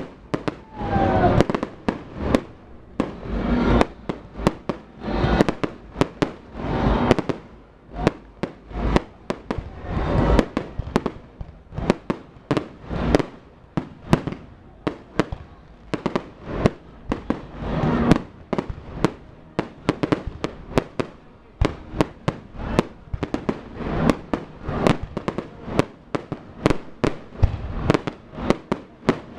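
Fireworks going off in a continuous barrage: sharp bangs and cracks in quick, irregular succession, several a second, with a low rumble between them.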